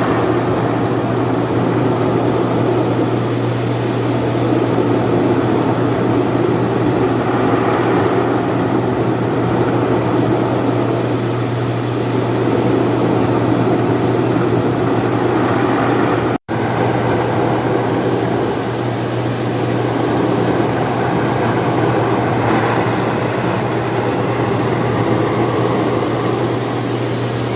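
Hydromassage bed running: a steady pump hum under a continuous rushing of water jets, which cuts out for an instant about two-thirds of the way through.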